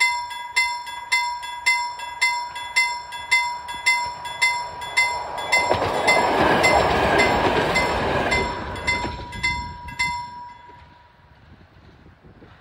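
Level-crossing warning bell ringing about twice a second while a two-car diesel railcar passes over the crossing, its wheel and engine noise swelling to the loudest point about six seconds in and then fading. The bell stops about ten seconds in, once the train has cleared the crossing.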